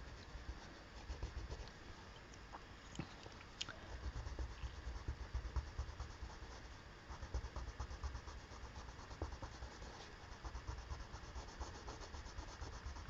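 Faint scratching and rubbing of coloured pencil strokes on a painted surface, with soft low bumps of the hand and paper against the desk.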